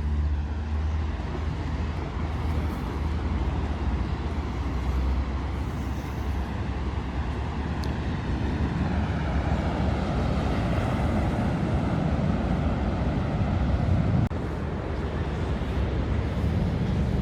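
Steady rushing wash of surf breaking on a beach, with a low rumble of wind on the microphone.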